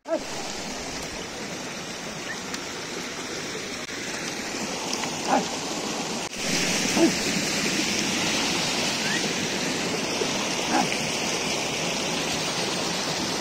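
Steady rushing of a flowing mountain stream. Three short pitched calls rise above it, about a third of the way in, just past the middle, and near the end.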